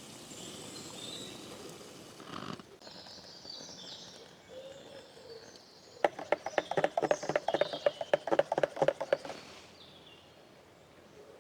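Birds chirping faintly in the background, then a fast run of sharp clicks, about ten a second, that lasts about three seconds in the middle.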